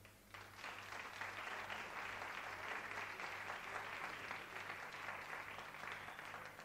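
Studio audience applauding, rising in the first second and dying away near the end.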